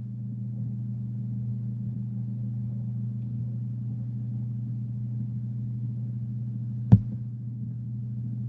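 Steady low electrical hum, with a single sharp click about seven seconds in.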